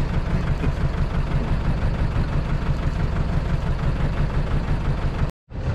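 Fishing boat's engine idling steadily, a close, fast low rumble. It drops out completely for a split second near the end.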